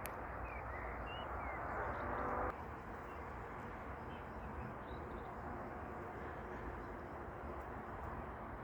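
Bumblebee buzzing close for about a second, growing louder and then cutting off sharply, over a steady low outdoor rumble, with a few faint bird chirps.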